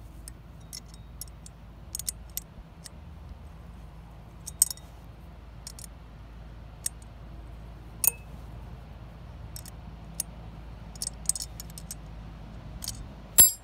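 Scattered metallic clicks and clinks of a wrench working two nuts locked together on a Predator 212 Hemi head's intake stud, turning the stud out of the aluminium head. The loudest clink comes near the end, over a low steady hum.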